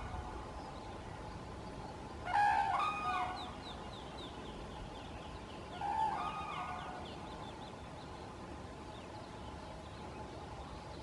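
Common cranes trumpeting from a nearby field: a loud bout of bugling calls about two and a half seconds in, and a shorter one about six seconds in.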